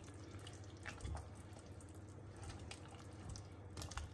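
Silicone spatula stirring crushed biscuits through a thick chocolate mixture in a glass bowl: faint wet squelches with a few light clicks of the spatula against the bowl.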